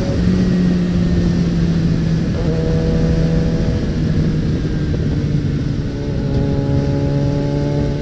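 Suzuki Bandit 650N's inline-four engine running at a steady cruise on the move, its note easing lower over the few seconds, with wind noise over the microphone.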